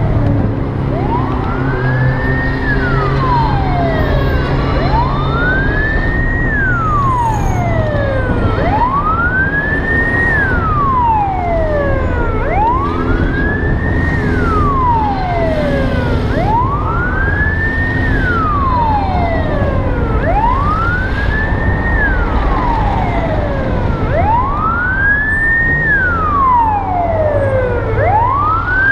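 Emergency vehicle siren wailing in slow, even cycles, each rising and then falling over about four seconds, over a steady low rumble.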